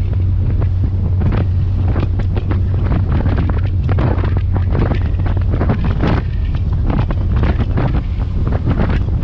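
Strong wind buffeting the microphone in irregular gusts on a moving passenger ferry, over a steady low drone from the boat's engines.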